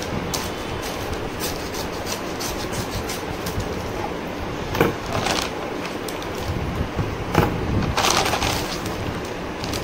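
Scissors snipping through a brown paper mailing envelope, then the stiff paper crinkling and rustling in a few short bursts as the envelope is pulled open and a packet drawn out, over a steady background noise.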